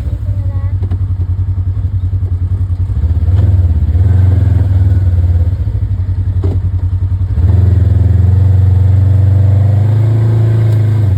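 Polaris RZR side-by-side's engine running while driving, a steady low drone that falls and rises as the throttle changes, loudest in the second half.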